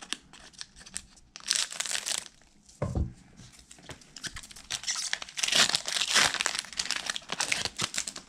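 Foil wrapper of a Skybox basketball card pack being torn open and crinkled in gloved hands, in bursts of crackling, with a soft thump about three seconds in.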